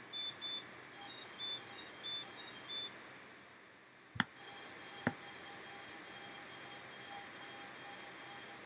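ESC calibration tones played through a quadcopter's brushless motors: two short beeps and a long high tone with the throttle at maximum, then after a pause and a click a steady run of short beeps, about two and a half a second, once the throttle is dropped to minimum.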